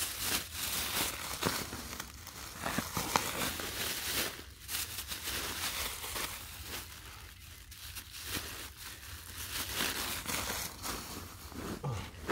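A thin plastic bag crinkling and rustling as it is handled, twisted and pulled, in an irregular run of crackles.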